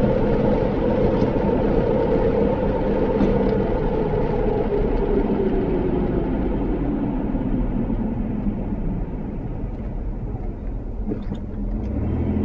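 Car driving, heard from inside the cabin: a steady rumble of engine and tyre noise. Its pitch falls and it quietens as the car slows over the middle seconds, then it picks up again near the end.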